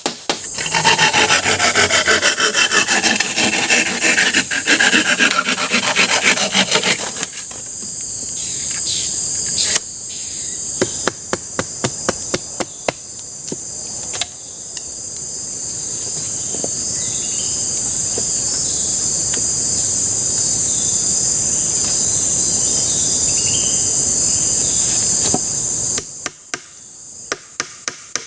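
Hand tool working wood: rapid rasping strokes for about seven seconds, then a steady shrill insect chorus with scattered knocks, and quick repeated chopping strikes again near the end.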